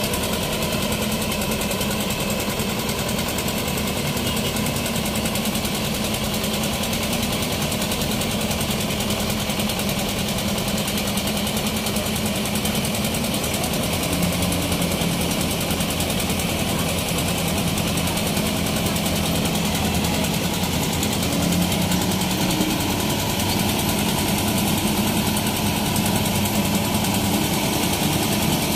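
Crane's diesel engine running steadily under load while hoisting a bridge girder, its engine note shifting slightly a couple of times.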